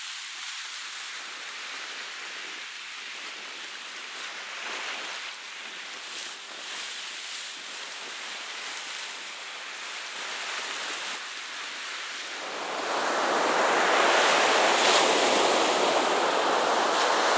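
Ocean surf breaking on the shore, a steady rushing wash that gets louder about three-quarters of the way through.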